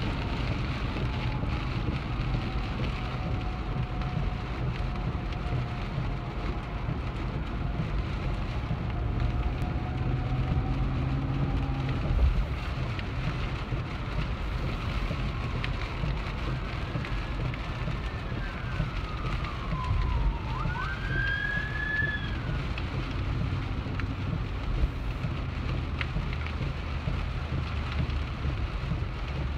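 Heavy rain and tyres hissing through water on the road, heard inside a moving car's cabin over a steady low road and engine rumble. A faint wavering tone rises and falls near the middle.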